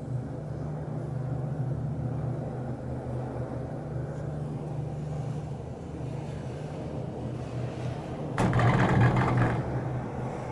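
Steady low hum inside a Leitner six-seat gondola cabin travelling on the rope. About eight seconds in, a loud rattle lasting about a second as the cabin's grip passes over the support tower's roller sheaves.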